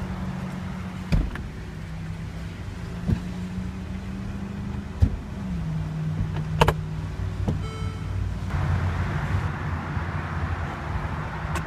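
Mercedes-Benz SL550's power-operated hardtop or trunk mechanism running with a steady hum that drops in pitch about halfway through, several sharp clicks and clunks, and a short electronic beep.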